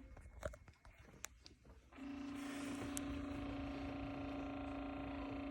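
Junichy humidifier's faulty motor humming, cutting out with a few clicks, then starting to hum steadily again about two seconds in. The motor runs but does not pull the water up.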